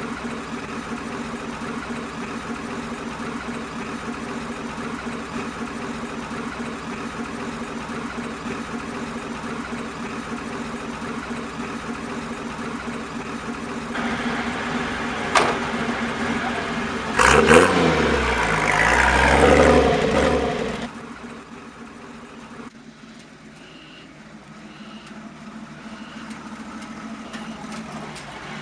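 Pickup truck engine idling steadily; about halfway through a door shuts with a sharp bang, then the engine is revved up and down loudly for a few seconds. After that a quieter engine runs.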